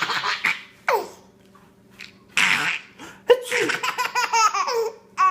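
Fake sneezes answered by laughter: a noisy sneeze burst about two and a half seconds in, followed by a quick run of pitched laughing pulses.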